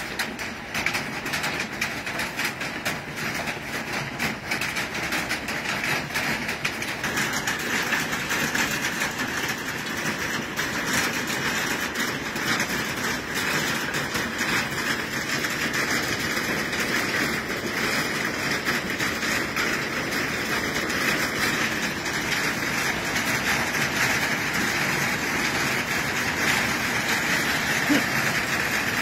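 Hailstorm: small hailstones pelting down in a dense, steady rattle of countless tiny impacts on roofs, paving and plants, growing slowly louder.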